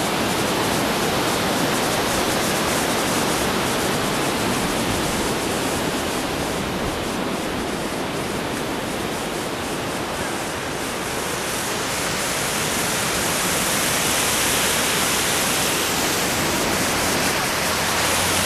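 River water rushing over shallow rapids and stones: a steady rush that grows a little louder and brighter about twelve seconds in.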